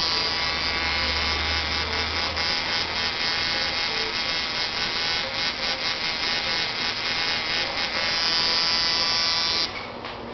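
Tattoo machine buzzing steadily, a bright electric hum with many overtones that gets a little louder for its last couple of seconds and then cuts off shortly before the end.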